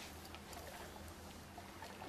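Faint water sloshing and trickling, with small scattered splashes over a low steady hum.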